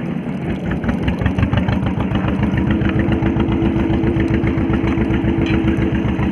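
Fishing boat's engine running steadily with a fast, even low putter.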